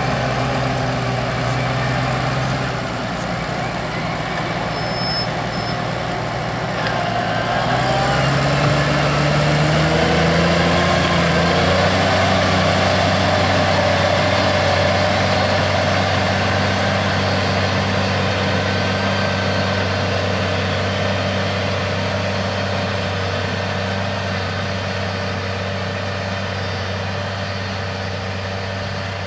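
New Holland T7-210 tractor's six-cylinder diesel running steadily while pulling a reversible plough through the soil. Its pitch rises from about seven seconds in and then holds steady under the load of ploughing.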